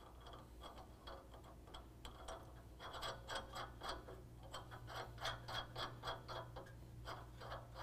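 Steel nuts being spun by hand onto the threaded studs of a bumper mounting bracket, with a faint, quick metallic ticking as the threads run on. The ticking grows busier about three seconds in.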